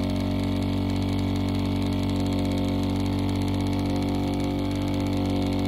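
Small vortex mixer's motor running with a steady hum, shaking a bottle of thick metallic paint held pressed down on its cup.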